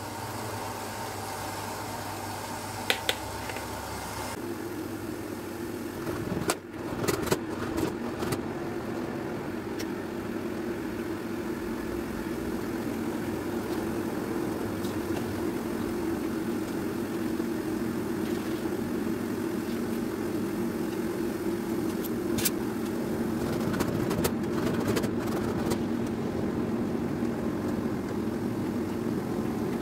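Strawberry jam boiling hard in an aluminium pan on full heat, a steady bubbling rumble that grows slowly louder as the boil builds. A few sharp knocks of a metal spoon against the pan come through it.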